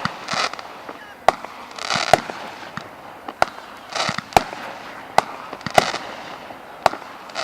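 Fireworks going off: a string of sharp bangs about once a second, with short bursts of hissing crackle between them.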